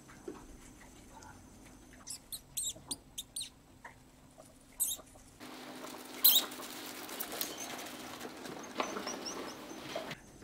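Mice squeaking: a quick run of short, very high squeaks about two seconds in, then a few single louder squeaks. From halfway on, a steady rustling of the hay bedding as the mice move through it, with a few faint chirps near the end.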